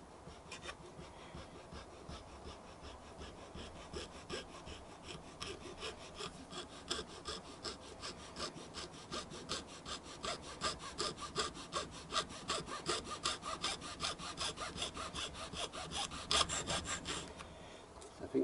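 Junior hacksaw sawing through red rubber hose with fast, even back-and-forth strokes. The strokes grow louder partway through and stop shortly before the end.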